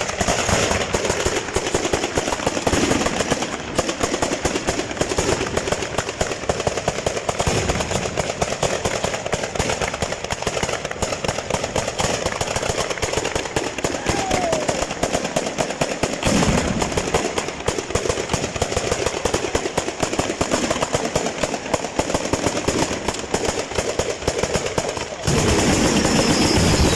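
Fireworks barrage: firecrackers going off in a rapid, continuous run of cracks like machine-gun fire, turning louder and denser near the end.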